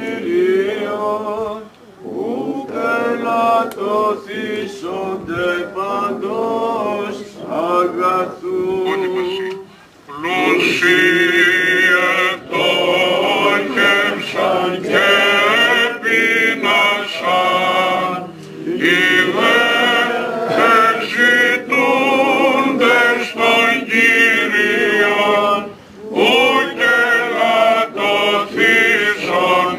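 Male voices chanting a Greek Orthodox Byzantine hymn unaccompanied, in long phrases with short breaks between them; the singing grows louder and fuller about ten seconds in.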